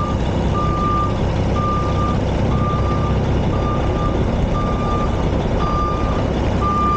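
Backup alarm beeping steadily, about one beep a second, over the steady running of a semi-truck's diesel engine.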